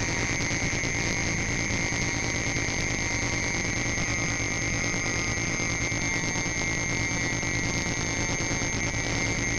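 Homemade square-wave synthesizers playing a steady drone: two high, shrill held tones over a dense buzzing noise bed, with no change in level.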